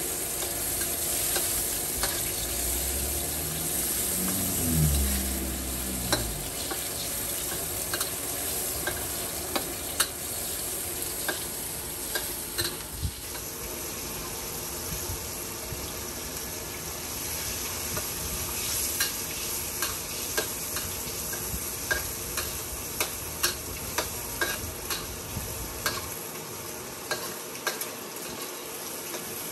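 Food sizzling in a hot wok while stir-frying, with a metal spatula scraping and clanking against the pan many times. A low rising hum sounds between about three and six seconds in.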